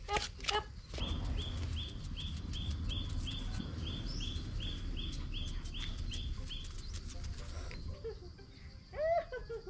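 A small bird's high chirp repeated evenly about three times a second for several seconds, then stopping, over a low rumble.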